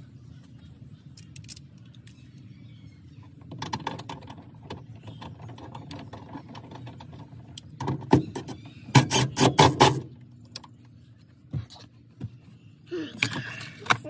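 Handling noises from work at a pickup truck's rear door: scattered clicks and rustling, then a quick flurry of sharp knocks a little past halfway, and a short rustle near the end, over a steady low hum.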